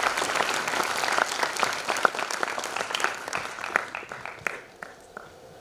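Audience applauding, the clapping thinning out and dying away over the last second or so.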